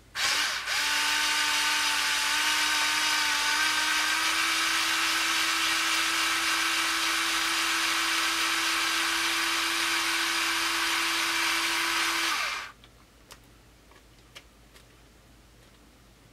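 WORX cordless power screwdriver running steadily for about twelve seconds as it backs out a small screw, a motor whine that steps up slightly in pitch about four seconds in, then stops suddenly. A few faint clicks follow.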